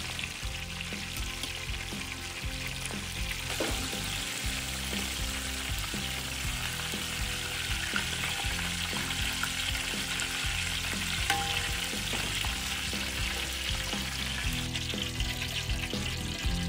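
Whole chickens deep-frying in a large wok of hot oil: a steady sizzle of bubbling oil.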